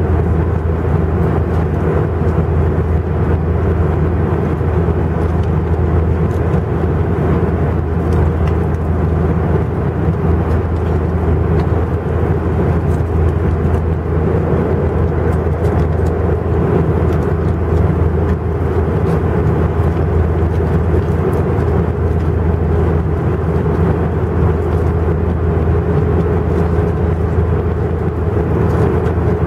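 Steady cabin noise of an Airbus A320 in climb, heard from a seat beside its IAE V2500 turbofan at climb thrust: a constant low rumble with a faint steady hum above it.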